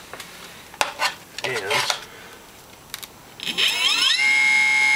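MAC 2000W electric lawnmower motor spinning up with no load on a 10S (about 38 V) battery pack. After a few clicks, its whine rises in pitch over most of a second and then holds a steady high whine at full no-load speed, about 2,700 RPM.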